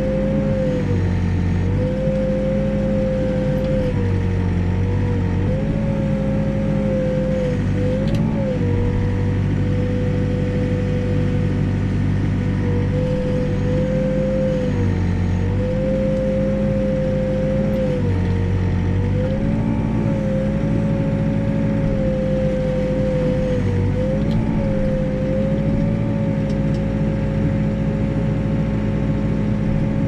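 New Holland backhoe's diesel engine and hydraulics running at working speed while digging a footing trench, the steady drone dipping briefly in pitch every few seconds as the hydraulics take load.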